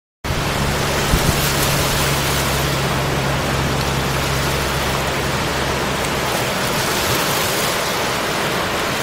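A steady, even hiss of noise with a low hum beneath it for the first half or so. It starts suddenly and cuts off suddenly.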